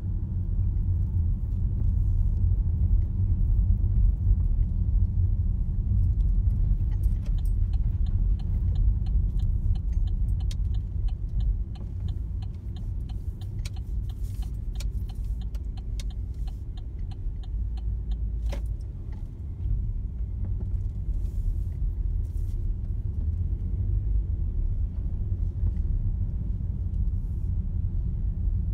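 Low engine and road rumble inside a car moving slowly. From about seven seconds in to about eighteen, a turn indicator ticks evenly, roughly two ticks a second. A single sharp click follows just after the ticking stops.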